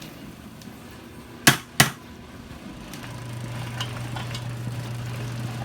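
Two sharp knocks about a third of a second apart, a metal skimmer rapped on the rim of the cast-iron cauldron to shake off skimmed frying debris. A steady low hum comes back about three seconds in.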